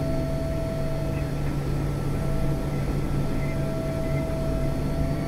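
Steady flight-deck noise of a Learjet 45 on final approach with gear and flaps down: a rush of airflow over a low engine hum, with a few constant high tones running through it.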